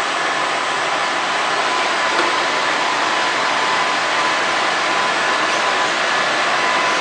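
Roller coating machine running: a steady mechanical whir and hiss with a faint, constant high whine.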